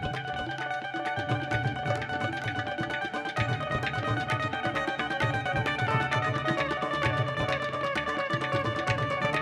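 Live Indian-fusion ensemble music: rapid, sharp percussive strokes and low drum beats over sustained pitched notes, played without a break.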